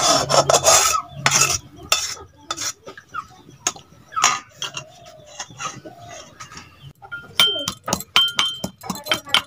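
Metal spatula scraping out a wok as cooked food is tipped into a steel bowl, then a spoon clinking against the steel bowl. From about seven seconds in, a pestle pounds in a small steel mortar, about two strikes a second, each strike ringing.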